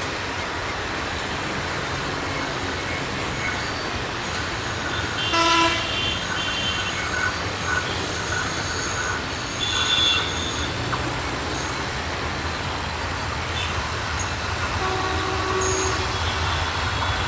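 Diesel locomotive (ALCO WDM-3A) hauling a passenger train, its engine rumble growing louder as it approaches. Short horn toots sound about five seconds in, again around ten seconds and near the end.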